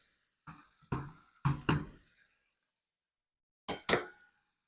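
A serving utensil knocking and clinking against the skillet and bowl as food is scooped into the bowl: a few knocks in the first two seconds, then two sharper clinks close together near the end.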